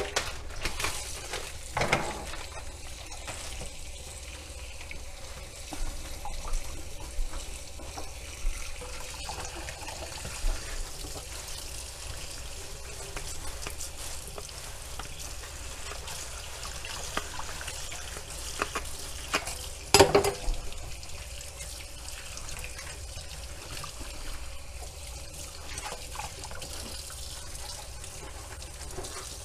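Kitchen faucet running into a stainless steel sink, the stream splashing over a black drum fillet held under it. A few knocks sound over the water, the loudest about two-thirds of the way through.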